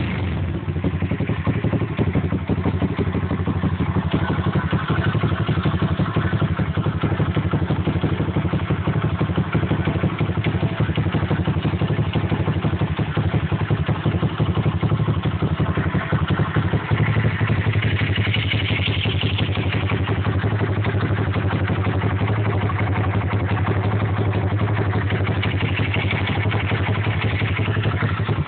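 Pit bike's single-cylinder engine idling steadily, with a fast, even run of firing pulses.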